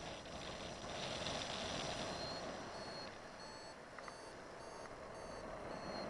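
Wind rushing over the microphone in flight. From about two seconds in, a paragliding variometer gives short high beeps about twice a second, the signal that the glider is climbing in rising air.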